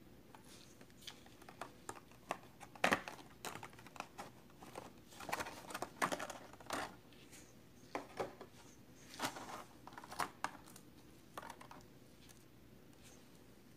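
Clear plastic blister packaging being handled and flexed by hand, giving irregular sharp crackles and clicks. The crackles are loudest about three and six seconds in and die away near the end.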